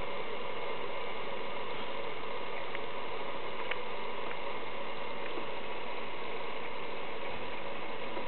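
Steady, even hiss with a few faint clicks about three and four seconds in.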